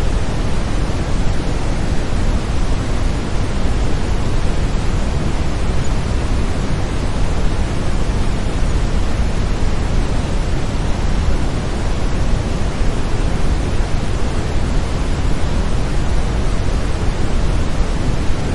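Brown noise: a steady, deep hiss, loudest in the low end and unchanging throughout.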